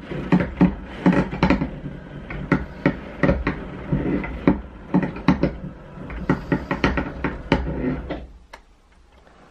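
Roller shutter being raised, its slats clattering and knocking irregularly, stopping about a second before the end.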